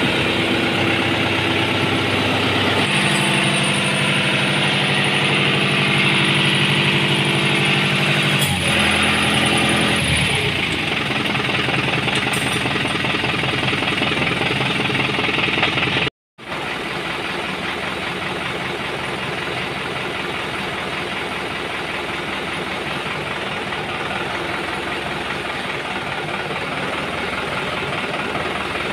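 New Holland TT4.90 tractor's diesel engine running, its pitch stepping up about three seconds in and dropping back around nine to ten seconds. After a brief cut-out near the middle it runs on steadily as the tractor is taken on a test run after its oil-soaked clutch lining was fixed.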